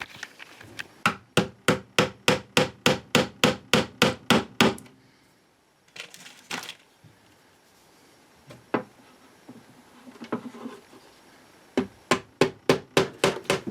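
Hammer tapping on a wooden radio cabinet: a run of about fourteen even taps, roughly three a second, then a pause with a few handling knocks. Near the end comes a second quicker run of taps.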